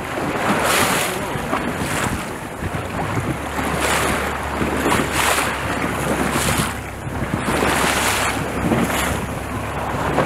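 Wind buffeting the microphone over water rushing and splashing past a moving boat, with surges of spray about once a second. The low steady hum of the boat's engine comes in about three seconds in.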